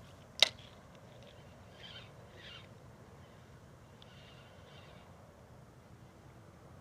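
One sharp knock about half a second in, then faint bird calls: two pairs of short high notes.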